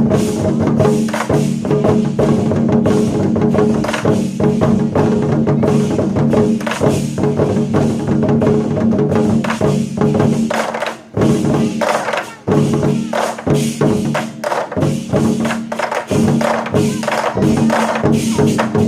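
Chinese war drums (zhan gu) beaten by a group over a recorded backing track, with dense sharp stick strikes and sustained tones underneath; the playing drops out briefly twice, about eleven and twelve and a half seconds in.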